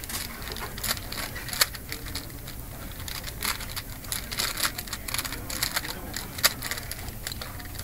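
Rubik's Cube being turned by hand: fast, irregular plastic clicks and clacks as its layers are rotated, with a few louder snaps among them.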